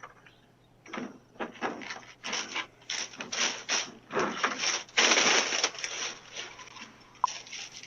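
Irregular rustling and scraping noises heard through a doorbell camera's microphone, the longest and loudest about five seconds in.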